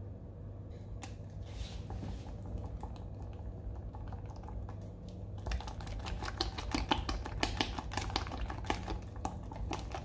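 Rapid, irregular light clicking and tapping of small hard objects, starting about five and a half seconds in, over a low steady hum.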